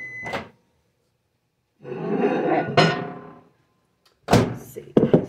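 A microwave's finish beep trails off and its door pops open with a click. A glass measuring bowl is then lifted out with handling noise and a sharp clink. Near the end come loud knocks as the microwave door is swung shut and the bowl is set on the counter.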